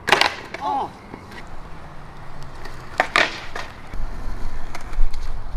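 Skateboard deck slapping the ground twice, about three seconds apart, during trick attempts, then the wheels rolling with a low rumble near the end.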